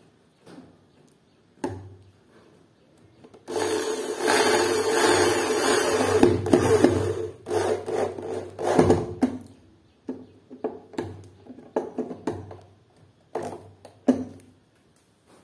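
Makita electric drill driving a self-drilling screw into an aluminium door frame. The motor runs steadily for about four seconds as the screw bores in, then gives a string of short bursts as the screw is run down tight.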